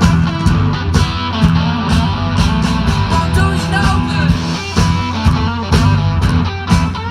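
Live rock-blues band playing an instrumental passage with electric guitar over bass and drums, between sung lines.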